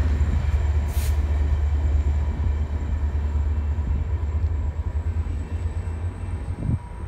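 A VIA Rail passenger train, its stainless-steel coaches hauled by an F40PH-2 diesel locomotive, rumbling away down the track. The rumble fades steadily as it recedes, and a short hiss comes about a second in.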